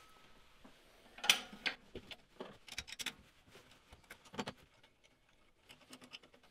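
Scattered light metallic clicks and clinks of a socket, nuts and bolts being handled, the sharpest about a second in.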